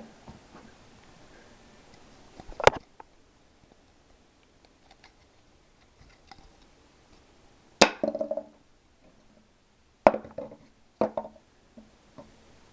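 A plastic part with a freshly welded-on plastic flange dropped onto a hard floor four times, each drop a sharp hit followed by a brief clatter as it bounces. This is a drop test of the plastic weld, which holds.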